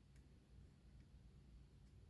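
Near silence: room tone with low hum and three very faint clicks.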